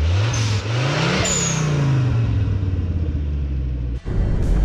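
Off-road 4x4's engine revving: the pitch rises twice in the first second, then winds slowly back down. About four seconds in it breaks off abruptly and is followed by a steadier, lower engine sound.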